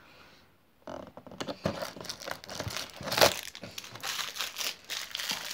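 Crinkling and tearing of a cardboard advent calendar as one of its doors is pushed open, starting about a second in, with a sharp crackle about three seconds in.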